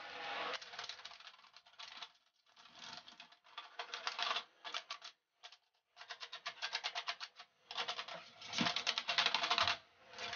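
Stiff brush scrubbing dust out of a desktop computer case and its metal grilles, in bursts of rapid scratchy strokes a second or two long with short pauses between.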